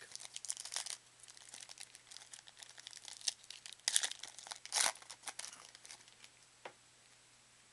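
Trading cards being handled and flipped through: card stock sliding and crinkling, with two louder swishes about four to five seconds in and quiet near the end.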